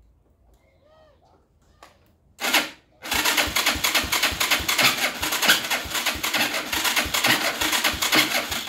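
Electric starter cranking a Bashan 200cc ATV engine: a short burst about two and a half seconds in, then a longer crank of about five and a half seconds with a fast uneven pulsing. The engine does not catch; the owner blames a weak battery and a bad spark plug.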